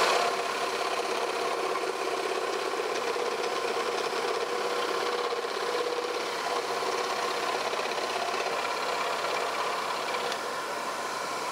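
Axminster Workshop AW405FS scroll saw running steadily, its reciprocating blade cutting a small shape out of thin wood.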